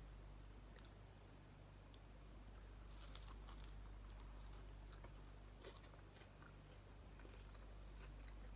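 Faint close-up biting and chewing of a battered corn dog, with a few soft crunchy clicks, a small cluster of them about three seconds in. A steady low hum runs underneath.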